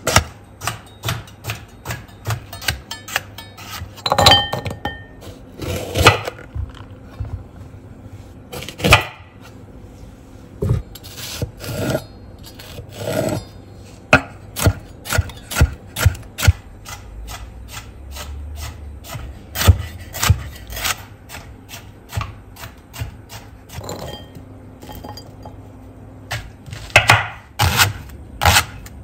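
Chef's knife chopping vegetables (carrot, bell pepper, leek) on a bamboo cutting board: runs of sharp knocks as the blade cuts through and strikes the wood, with short pauses between runs.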